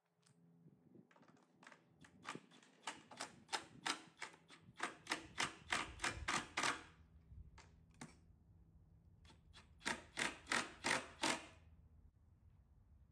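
Cordless drill/driver running as it drives screws through a battery case into a plywood board. Its motor hums under two runs of sharp clacks at about three a second, the second run shorter and starting about ten seconds in.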